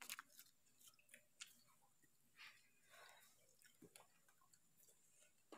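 Faint eating sounds: soft chewing and small mouth clicks, with light crinkles from the paper wrapper as rice is picked up by hand. Scattered quiet ticks, with a couple of short soft rustles a little after the middle.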